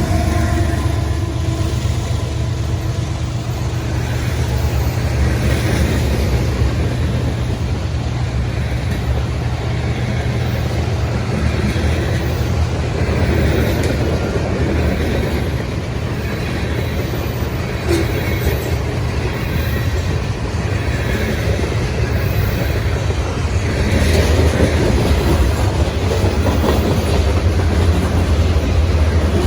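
CSX manifest freight train rolling past: a steady, loud rumble of wheels on the rails, louder over the last few seconds.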